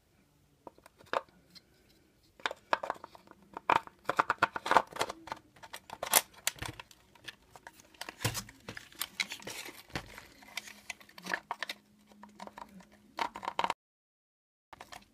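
Quick clicks and rattles of hard plastic and small metal parts of a radio-controlled truck being handled and fitted by hand. The sound cuts off abruptly near the end.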